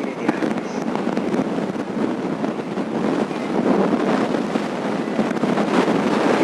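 Loud, steady rushing noise that sounds like heavy rain, though no rain was falling; its source is unexplained.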